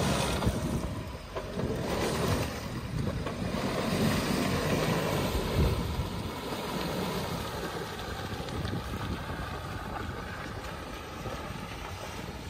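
Mahindra Thar's engine pulling in four-wheel-drive low range as it churns out of mud and through shallow water, with tyres splashing and wind buffeting the microphone. It surges louder in the first half, then runs steadier and a little quieter.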